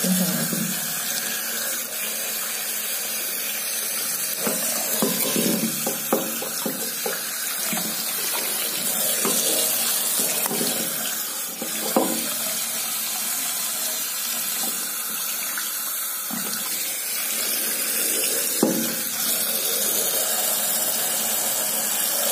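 Tap water running steadily into a basin as a turtle's shell is rinsed under it by hand, with a few brief splashes along the way.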